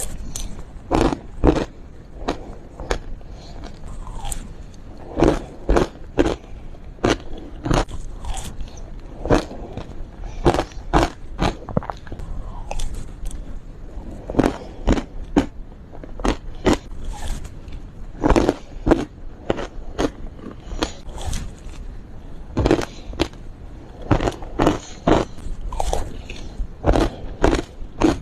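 Close-up biting and crunching of frozen matcha ice with passion fruit: sharp, irregular cracks, several a second, between bouts of chewing.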